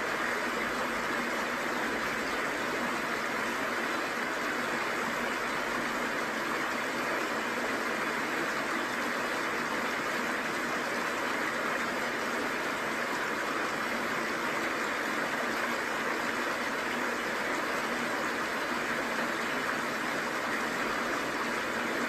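Steady rush of a small waterfall and the stream running over rocks below it.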